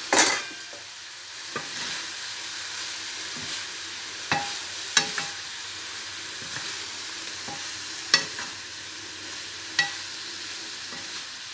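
Pan of frying fusilli pasta with chicken and button mushrooms sizzling steadily as it is stirred and tossed with a spatula. A loud, short clatter comes right at the start, and the spatula knocks against the metal pan several times, each knock ringing briefly.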